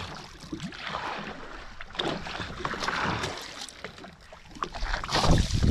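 Sea water washing and splashing against the hull of a small outrigger fishing boat, with a louder low rumble near the end.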